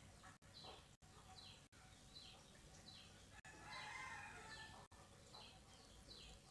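Near silence with a faint bird call in the background: a short high chirp falling in pitch, repeated steadily about every 0.8 s.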